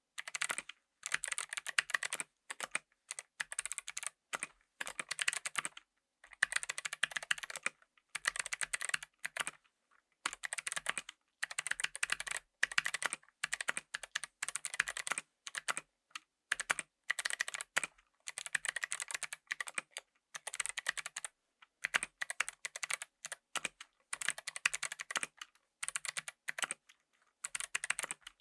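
Typing on a mechanical keyboard fitted with Kailh BOX Navy clicky switches: heavy-sprung switches with a thick click bar. The keys are typed in bursts of rapid, sharp clicks lasting a second or two, with short pauses between them.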